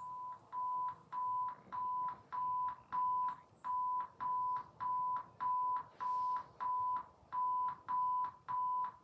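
Emergency broadcast alert tone: a single high steady beep repeated about twice a second, some eighteen times.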